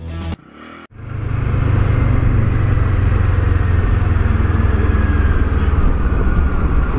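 Kawasaki motorcycle being ridden in traffic, its engine running steadily under wind rush on a helmet camera. The sound comes in suddenly about a second in, after a brief gap.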